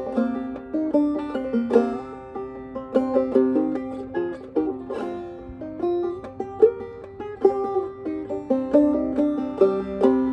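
Clawhammer banjo in Double C tuning playing a slow, haunting Hungarian folk melody, picked notes ringing over a steady drone.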